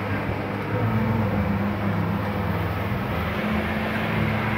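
Fishing boat's outboard motor running, its low hum stepping up and down a little in pitch, over a steady rushing noise.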